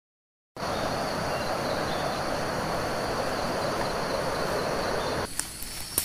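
Rainforest ambience: a steady, high-pitched insect drone over a broad rushing noise. It starts about half a second in, and a little past five seconds the rushing noise drops away sharply, leaving the insect drone and a few sharp clicks.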